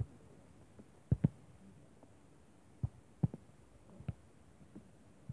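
A few sharp, low thumps close to the microphone at irregular intervals, the loudest a quick pair about a second in, over a quiet background.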